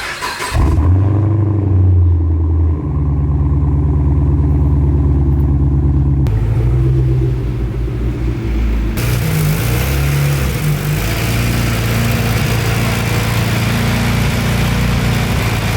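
A car engine running steadily, its sound shifting abruptly in pitch and character a few times.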